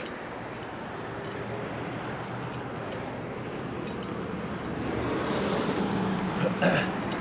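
Steady rush of wind, tyre and traffic noise from a moving bicycle beside freeway traffic. It grows louder about five seconds in as a car approaches.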